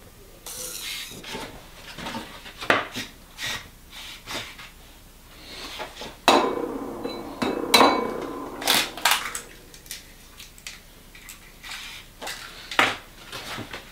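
A string of sharp taps, knocks and clinks from eggs, a cardboard egg carton and a glass bowl being handled on a kitchen worktop as eggs are cracked into the bowl. Some clinks ring briefly, and the knocks come thickest in the middle of the stretch.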